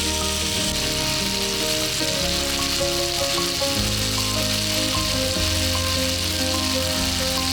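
Food frying in a hot pan, a steady sizzle, over background music with held notes and a moving bass line.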